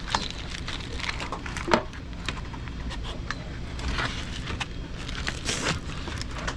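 Foam-insulated copper refrigerant line set being hauled by hand through a ceiling opening: scattered scrapes, crackles and knocks as the pipe rubs and bumps against the metal ceiling framing and drywall, the sharpest knock about two seconds in, over a steady low hum.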